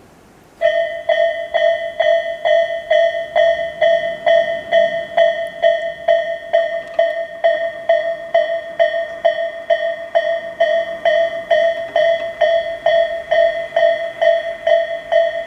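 Japanese level-crossing warning bell of the Isesaki type: a loud electronic ding that starts suddenly about half a second in and repeats evenly about twice a second.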